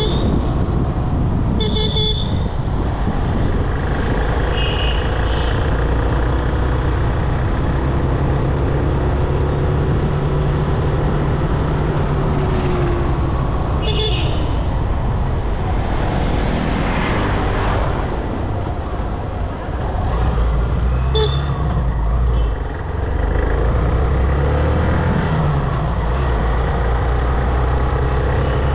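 Steady engine and road noise from a car driving through traffic, with short vehicle-horn toots sounding about five times, spread through the stretch.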